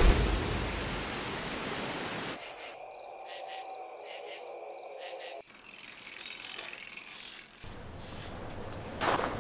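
A cut sequence of nature sound effects: rushing river water for the first couple of seconds, then a quieter outdoor ambience with insects chirping, and a louder noisy sound starting just before the end.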